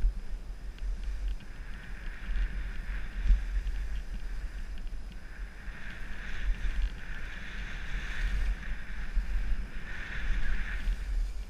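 Skis hissing and scraping over packed snow during a downhill run, swelling several times as the skier turns, over a steady low rumble of wind on the action camera's microphone.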